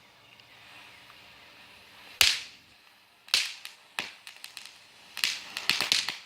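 Throw-down snap pops (bang snaps) cracking as they hit the ground: one sharp crack about two seconds in, two more about a second apart, then a quick run of many cracks near the end.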